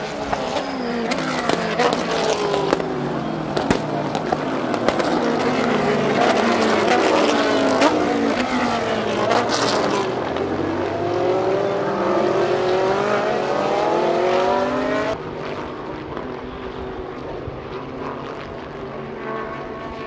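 A pack of GT-class race cars running through a series of bends, many engines overlapping and rising and falling in pitch as they brake, shift and accelerate, with sharp cracks among them. About fifteen seconds in, the sound cuts to cars further off and quieter.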